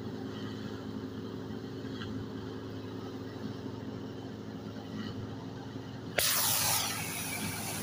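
Wheat thresher driven by a Massey Ferguson 240 tractor's three-cylinder diesel, running with a steady low drone as wheat bundles are fed in. About six seconds in, a sudden loud hissing rush breaks in and stays until the end.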